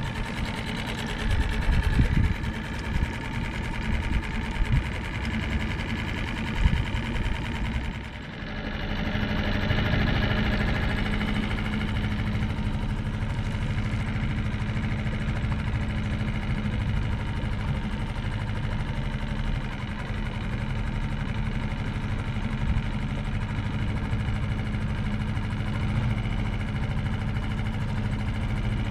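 Engine running steadily, with scattered knocks and bumps over the first several seconds, a brief drop just after eight seconds, then an even drone.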